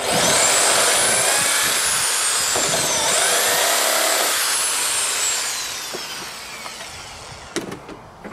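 Bosch electric drill running with its bit in a wooden boat plank, drilling at an old bronze screw. The motor whine dips in pitch about three seconds in and picks up again, then dies away over the last few seconds, with a couple of small knocks near the end.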